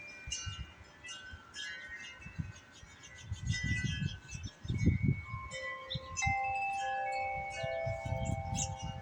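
Wind chimes ringing and clinking in gusty wind, with several overlapping long-held tones. Wind buffets the microphone in low rumbling gusts, strongest around the middle and near the end.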